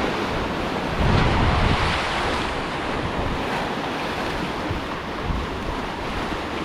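Heavy rain with wind buffeting the microphone: a steady rushing noise that swells about a second in.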